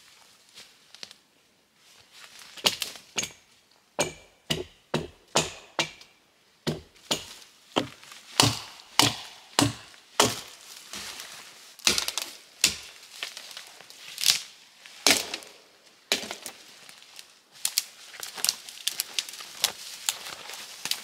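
Wood being chopped: a long run of sharp blows, at times about two a second, broken by short pauses.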